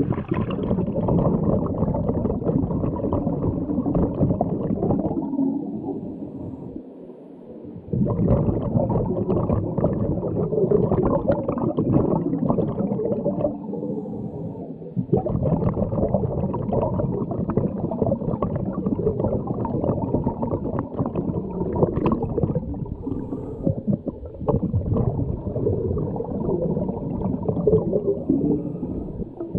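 Scuba divers' exhaled regulator bubbles gurgling and rumbling underwater, muffled, in long rushes with short lulls about six and fourteen seconds in.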